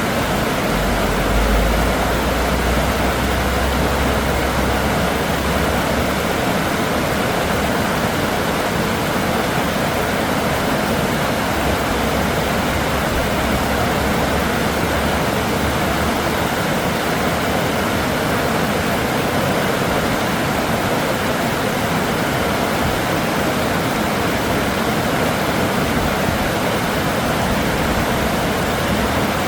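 River water rushing steadily, with a low rumble underneath twice.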